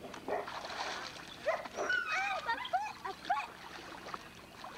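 A small dog yipping and whining in a string of short, high, rising-and-falling cries, most of them between about one and a half and three and a half seconds in.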